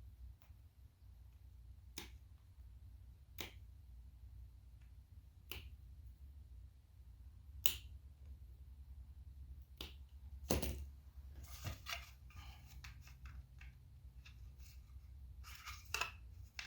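Sharp, isolated clicks about every two seconds, the loudest about ten and a half seconds in, then a flurry of lighter ticks and rustling near the end, over a steady low hum: small cast-resin buttons being trimmed and handled by hand.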